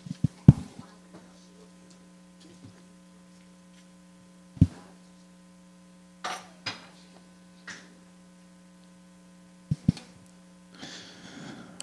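Scattered knocks and bumps from desk microphones and the desk being handled, a few short rustles, over a steady electrical hum from the room's sound system.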